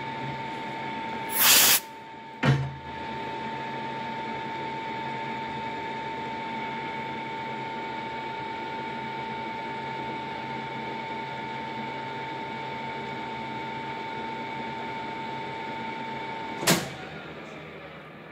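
Colchester Bantam 1600 lathe running steadily with a constant whine from its gear train while screw-cutting a fine thread on a steel shaft. About a second and a half in there is a loud clunk and the running sound briefly drops, then it picks up again with a click as the spindle is reversed. Near the end another clunk comes and the running sound fades away.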